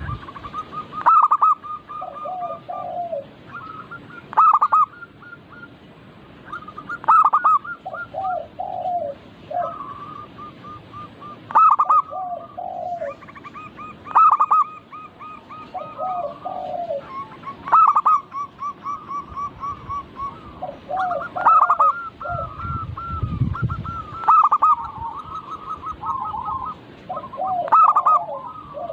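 Zebra doves (perkutut) cooing, a loud phrase about every three seconds with softer rolling coos overlapping between them. A brief low rumble comes about two-thirds of the way through.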